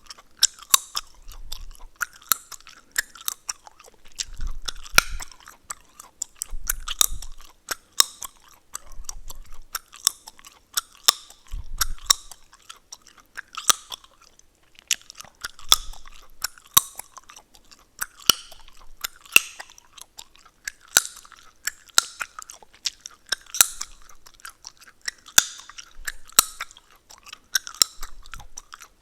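Gum chewing close to the microphone: wet mouth smacks with sharp cracking and popping clicks, coming irregularly about once or twice a second.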